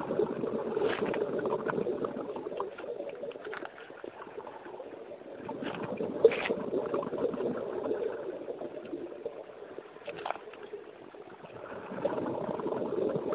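Water sloshing and gurgling in slow surges that swell and fade every few seconds, with a few sharp clicks.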